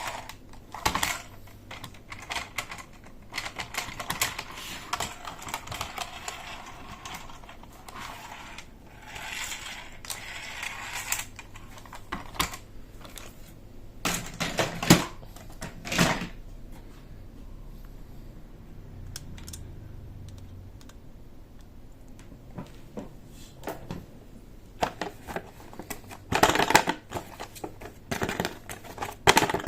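Hands unboxing plastic toys: packaging rustling and crinkling, with irregular sharp clicks and knocks of hard plastic parts and a denser run of clicks near the end.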